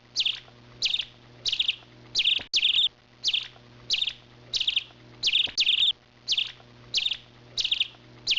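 A small songbird calling a short chirp over and over, about two a second and evenly spaced, over a faint steady low hum.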